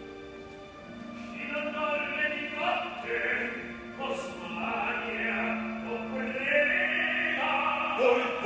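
Operatic singing with orchestra: from about a second in, a male opera voice sings with vibrato over sustained orchestral chords.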